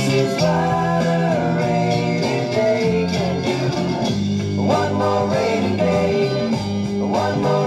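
Late-1960s rock song playing from a vinyl LP on a turntable: a sung vocal line over electric guitar and sustained organ chords.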